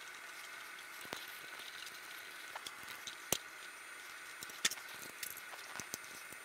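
Faint clicks and light handling noises of a rubber fuel hose and its clamp being worked off under a BMW R60/2's fuel tank, over a faint steady hiss. A few sharper clicks stand out; the loudest comes a little past three seconds in.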